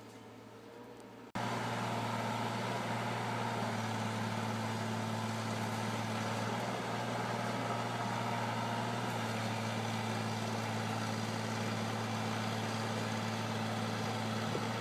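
Diesel engine of a Caterpillar tracked machine running steadily close by, a constant low drone. It comes in abruptly about a second and a half in, after a faint start.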